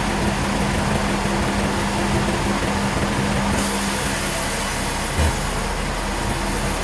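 Sawmill machinery running steadily with a constant hum, and a single low thump about five seconds in.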